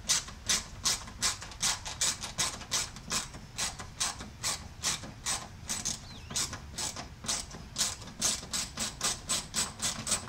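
Hand ratchet clicking in a steady rhythm, about three clicks a second, as it turns out the fastener of a car's door pin switch.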